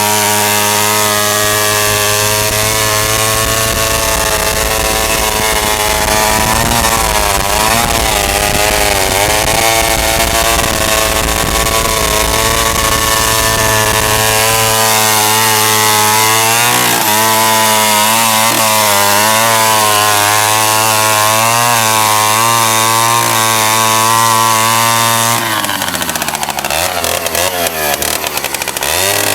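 1965 Landoni L 98 chainsaw's 98cc two-stroke engine running hard, its revs wavering up and down in repeated waves. About 25 seconds in, the sound drops and turns uneven as the revs fall away.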